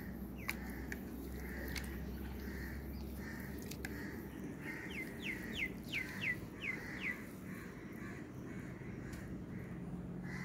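A bird calling: a quick series of about seven short falling notes a little before the middle, over a steady outdoor background.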